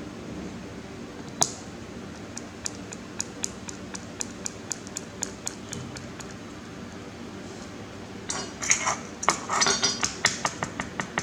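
Small hard objects clicking and clinking: one sharp click, then a run of light, evenly spaced ticks at about four a second, then a busy clatter of clinks near the end.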